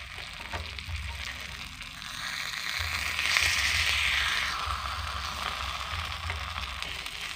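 Cake batter sizzling in a hot multi-cup non-stick cake mould as half-cooked banana cakes are turned over with spoons; the sizzle swells about three seconds in, as a flipped cake lands in the hot cup, then settles. A few light spoon clicks against the pan.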